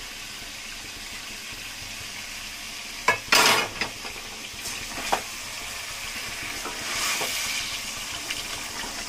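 Chicken and spice masala sizzling in a frying pan while yogurt is stirred in a little at a time, the spoon scraping against the pan. The scrape is loudest about three seconds in, with a lighter knock near five seconds.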